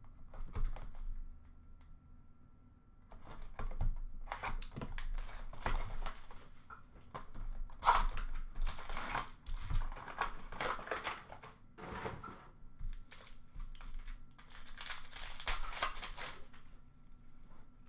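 Upper Deck Allure hockey card box being opened and a foil card pack crinkling and tearing open by hand, in a run of irregular rustling bursts, loudest about eight seconds in and again near the end.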